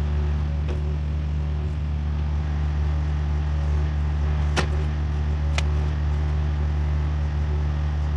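Compact excavator's diesel engine running steadily, with two sharp clanks about four and a half and five and a half seconds in.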